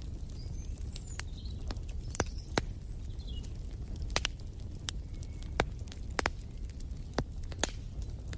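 Wood fire in a fireplace crackling: irregular sharp pops and snaps over a low steady rumble of the burning logs. A few faint short bird chirps sound in the background, mostly in the first half.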